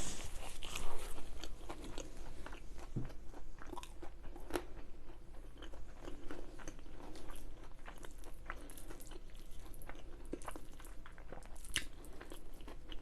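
Close-miked eating sounds of someone eating a chicken tikka masala meal with naan: chewing with soft crunches and scattered mouth clicks.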